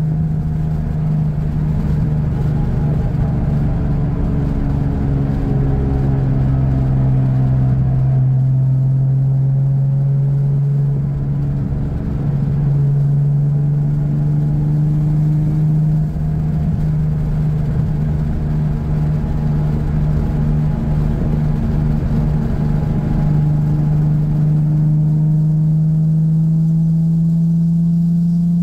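2004 Nissan 350Z's VQ35DE V6 with aftermarket Motordyne ART pipes, resonated Y-pipe and Z1 muffler, heard from inside the cabin at a steady cruise: a loud, even exhaust drone. Its pitch sags a little, then rises gradually near the end as the car picks up speed.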